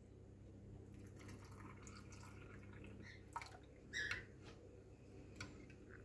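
Faint sound of cold water poured from a jug into a small glass bowl of gelatin powder, then a metal spoon stirring it and clinking against the glass a few times, most sharply about four seconds in.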